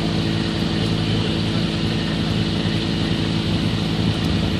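Multirotor camera drone's motors and propellers humming steadily as it hovers, one unchanging pitched buzz over a rush of air.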